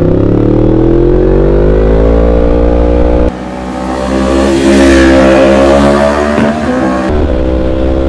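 Yamaha MT-10's crossplane inline-four through an Akrapovic exhaust, revving up under hard acceleration with its pitch climbing steadily for about three seconds. The bike is then heard from the roadside going past with a rush of wind, its pitch rising and falling, and near the end it runs steadily again.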